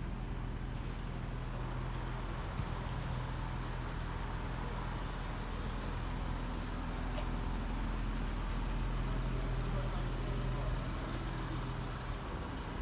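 City street traffic in the rain: a road vehicle's engine running steadily close by over a steady hiss, swelling a little in the middle and easing near the end.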